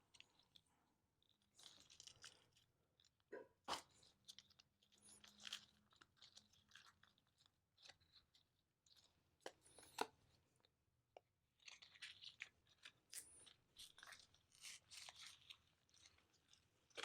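Faint, scattered clicks, taps and light scraping of small hand tools working on a smartphone, as the glass back cover is lifted and pried open. Two sharper clicks stand out, about four seconds in and about ten seconds in.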